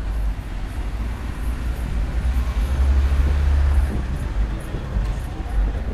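Busy city street traffic: motor vehicles running with a low rumble, swelling to its loudest about three to four seconds in as one passes close, then easing off.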